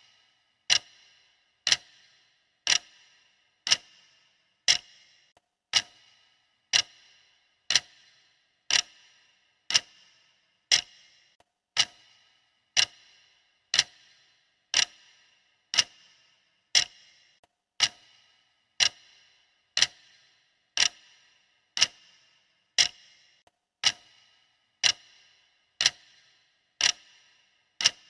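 Clock-style ticking of a workout countdown timer: one sharp tick about every second, each with a short high ring, marking off the seconds.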